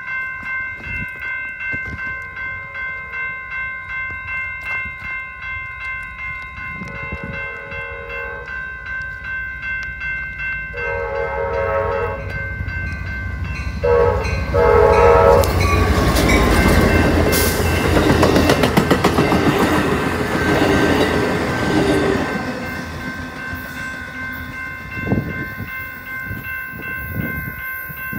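Grade-crossing bells ring steadily throughout while an Amtrak Capitol Corridor train led by an F59PHI diesel locomotive sounds its horn in the crossing pattern: long, long, short, long. The train then passes with a loud rumble and clatter of wheels for several seconds before fading away, and the bells keep ringing.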